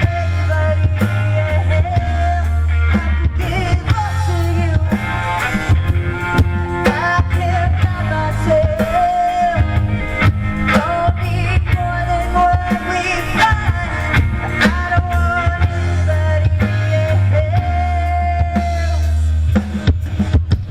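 Live rock band playing, with a singer's sustained vocal line over electric guitar, bass and a drum kit keeping a steady beat.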